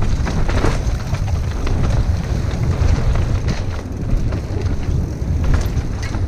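Mountain bike descending a rough dirt trail at speed: wind buffeting the microphone in a steady rumble, over tyre noise on dirt and many short knocks and rattles from the bike over bumps and roots.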